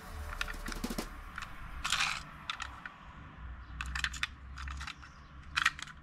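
Handling noise of a small diecast toy bus turned over in the hands: scattered light clicks and taps with a couple of brief rubbing scrapes.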